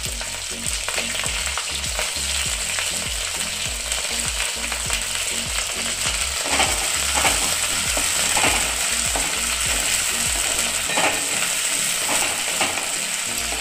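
Green peas and chopped capsicum sizzling steadily in mustard oil in a metal kadai. From about halfway through, a wooden spatula stirs them, scraping and tapping against the pan.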